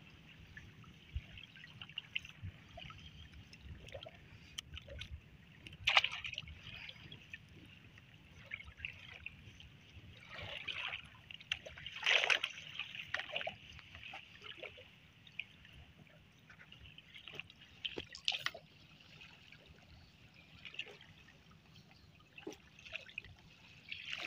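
Water trickling and splashing off a fishing net as it is hauled by hand out of the river into a small wooden boat. The drips and splashes come irregularly, with the loudest splashes around the middle.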